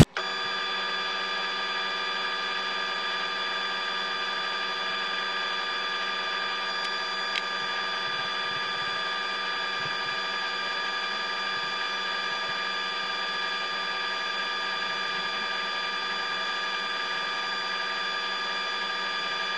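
Standard Modern 9-inch lathe running steadily while turning a small metal rod held in its three-jaw chuck, with a steady whine from the machine.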